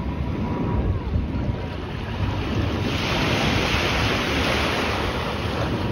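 Distant engine roar of a jet airliner climbing away after takeoff, mixed with wind buffeting the microphone; a brighter hiss swells in about three seconds in.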